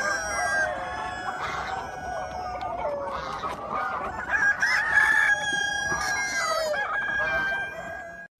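A yard flock of chickens: several roosters crowing in long, overlapping calls while hens cluck. The sound cuts off abruptly near the end.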